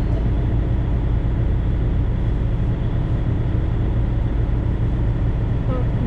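Lake cruise boat's engine droning steadily, heard from inside the passenger cabin, with the even rush of water along the hull.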